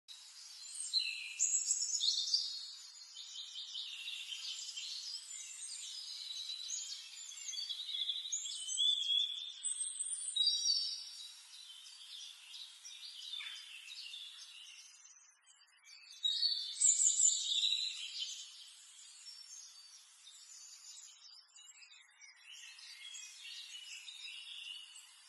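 Several songbirds singing at once: overlapping chirps, trills and whistles, with a brief lull about fifteen seconds in.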